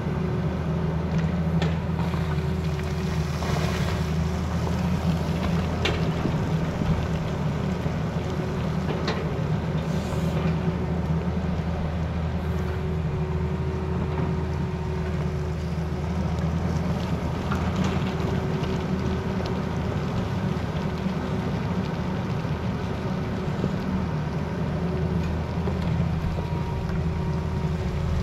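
Tata Hitachi Zaxis excavator's diesel engine running steadily under load as the machine digs, with a low hum throughout. A few sharp knocks come from the bucket working the rock and stones.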